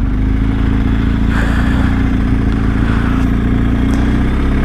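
BMW R1250 GS boxer-twin motorcycle engine running steadily under light throttle, its note rising slightly in pitch.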